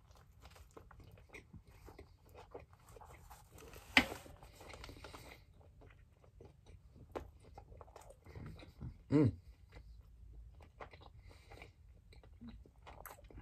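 A person chewing a mouthful of roast beef hoagie on a crusty toasted roll, with wet, crunchy chewing and many small mouth clicks. There is a sharp click about four seconds in and a short hummed vocal sound about nine seconds in.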